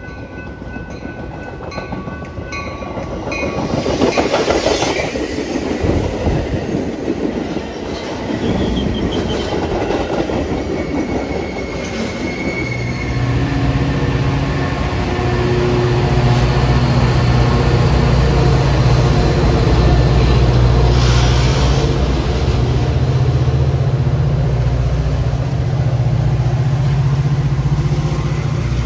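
Train at close range: a few steady horn tones fading out in the first few seconds, then a loud rush of wheels and cars on the rails about four to eight seconds in, and from about halfway a steady low diesel locomotive engine drone that runs on.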